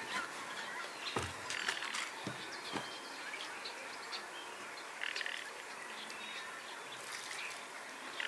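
Birds calling and chirping in short bursts, with a few sharp clicks and knocks among them.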